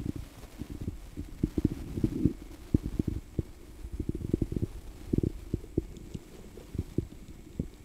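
Muffled low thuds and rumbling from a camera filming underwater, with irregular knocks and water movement against its housing.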